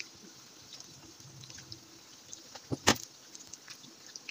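Besan-battered eggplant slices deep-frying in hot ghee: a steady sizzle with scattered crackling pops, and one sharp knock a little under three seconds in.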